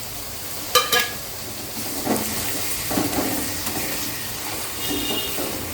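Ginger-garlic paste sizzling in hot oil with frying onions in a pot while a spoon stirs it, with a couple of sharp clinks of the spoon against the pot, about a second in and about three seconds in.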